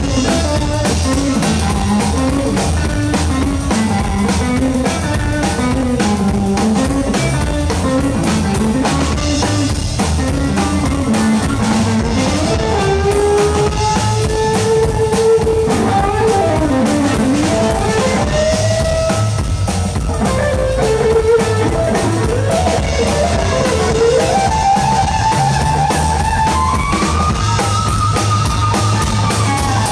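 Live rockabilly trio playing an instrumental break: an electric guitar plays a lead line with bending notes over a steady drum kit and upright bass, with no singing.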